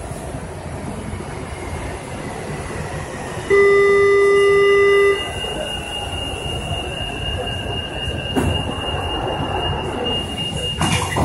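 Monorail train standing still with its equipment running as a steady rumble. About three and a half seconds in, a loud steady electronic tone sounds for about a second and a half. A thin high tone follows and holds until a short thump near the end.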